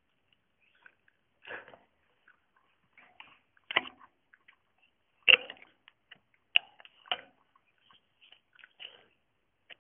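A pet hamster moving about and pawing at its cage right by the microphone: scattered sharp clicks and knocks on the cage bars with brief scratchy rustles between them. The sharpest knocks bunch together in the middle stretch.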